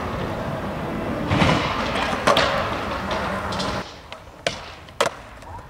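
Skateboard landing a trick: two sharp clacks about half a second apart, after a loud, dense stretch of noise that stops suddenly.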